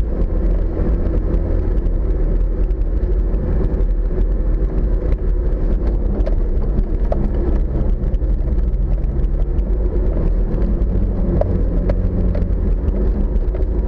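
Off-road vehicle's engine running steadily as it crawls across rough grassy ground, heard from a camera on the bonnet, with occasional small knocks and rattles.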